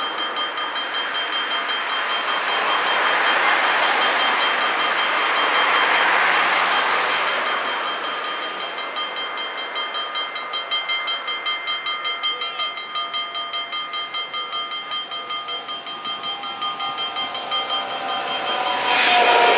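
Mechanical warning bells of an automatic half-barrier level crossing ringing in a fast, steady rhythm. Near the end the rushing noise of an approaching ICE high-speed train rises over them.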